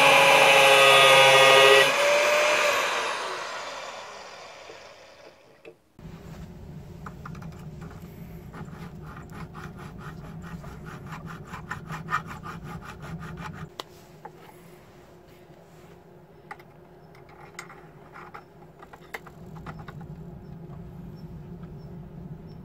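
A grinder with a cutting disc runs loudly on the steel spanner, then is switched off and spins down over a few seconds. After a break, a needle file scrapes the steel held in a bench vise in quick back-and-forth strokes, which stop about two-thirds of the way through, leaving faint handling clicks.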